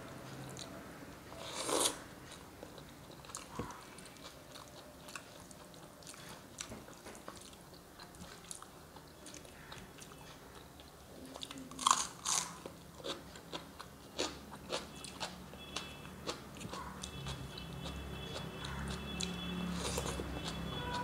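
Close-miked eating by hand: fingers mixing rice and vegetable curry on a plate, with crunchy bites and chewing as a series of short clicks, two of them louder, about two seconds in and near the middle. A faint steady high tone comes in near the end.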